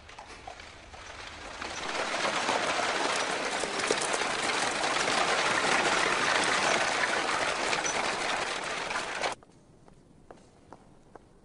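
Horse-drawn carriage rolling past: a loud, steady gritty noise of wheels and hooves that builds over the first two seconds and cuts off abruptly about nine seconds in. Faint, regular taps follow.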